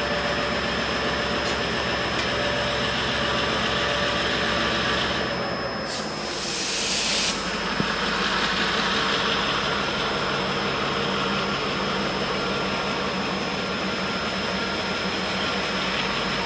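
Diesel-electric locomotive engine running steadily as a freight train pulls away slowly, with a short sharp hiss about six seconds in.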